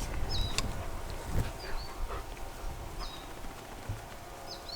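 A small bird chirping outdoors: a few short, high chirps, each dropping sharply in pitch, about a second or so apart, with a faint lower animal call in between.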